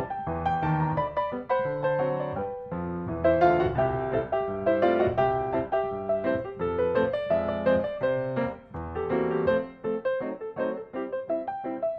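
Background piano music: a steady run of struck notes and chords with a melody above.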